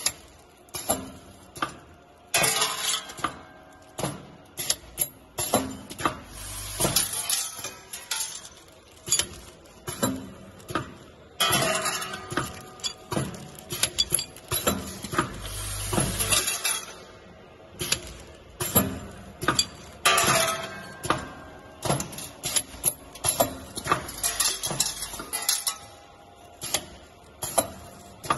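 Vertical bagging machine with bowl feeders running: a busy stream of metallic clinks and clacks as metal parts drop through the filling tube and the sealing mechanism works, with plastic film crinkling in the middle stretch.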